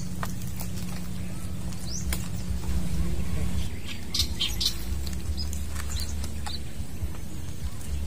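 Light clicks and rustles from handling fishing gear and an airgun, a few sharp clicks about two seconds in and again around four seconds, over a low steady rumble, with faint bird chirps.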